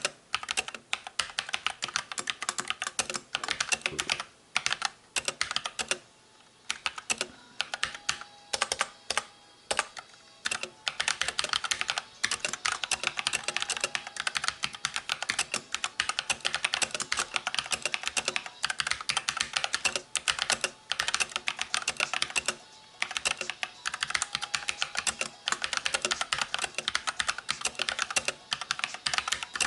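Fast, continuous typing on an AUKEY full-size mechanical keyboard with red (linear) switches: dense rapid key clacks with a few brief pauses. The keycaps are a little loud from keys bottoming out, which shows the board's modest sound dampening.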